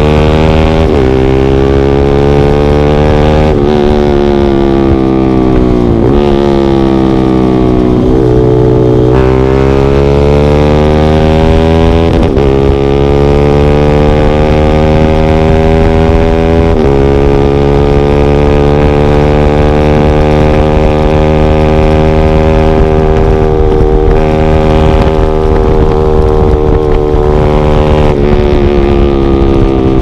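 Motorcycle engine at full throttle, heard from a camera mounted on the bike. Its pitch climbs in each gear and drops back at each of several upshifts over the first seventeen seconds or so, then holds high and steady at speed.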